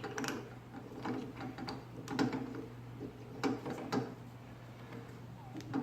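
Scattered metal clicks and knocks as a drill bit is fitted into a drill press chuck and the chuck is worked by hand.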